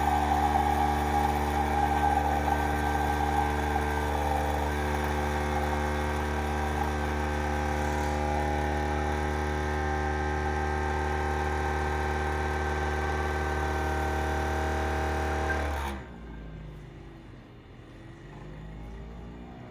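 Spinn centrifugal coffee maker running as it brews: a steady motor whine that cuts off suddenly about sixteen seconds in, followed by a quieter whir with shifting pitch.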